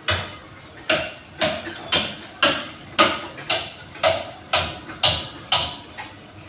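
Hammer tapping on metal in a steady rhythm, about two blows a second, eleven in all, each with a short ring, stopping about five and a half seconds in.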